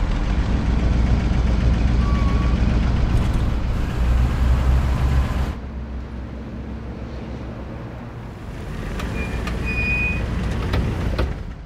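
Car driving fast over asphalt: a heavy low road-and-engine rumble that drops off suddenly about five and a half seconds in. A quieter street bed follows, swelling again as a vehicle goes by, with a couple of short high chirps near the end.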